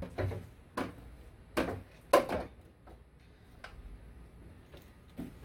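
Long-handled deck brush working deck cleaner across a boat's gelcoat deck: a handful of short, uneven scrubbing strokes and knocks, the loudest about two seconds in, then fainter ones.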